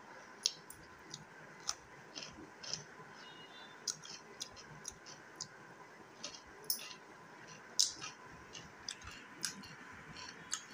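Mouth sounds of someone eating by hand: chewing with a string of irregular, sharp smacking clicks.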